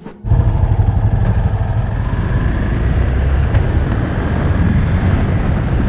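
A motorcycle riding along a road: the engine running steadily under heavy wind rush on the camera microphone, cutting in suddenly just after the start.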